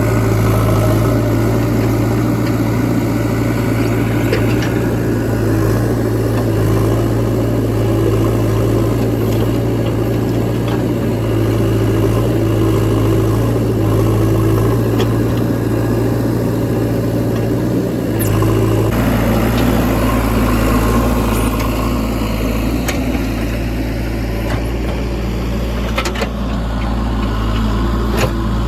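JCB 3DX Eco backhoe loader's diesel engine running steadily while it works, its note changing about two-thirds of the way through.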